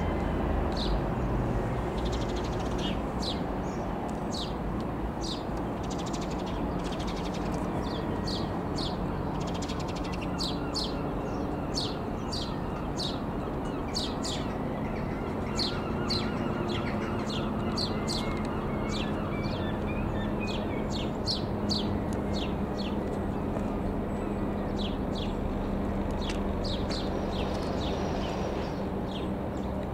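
Comco Ikarus C-42 FB100 microlight's four-cylinder Rotax engine and propeller droning steadily overhead. Many short, high bird chirps sound over it throughout.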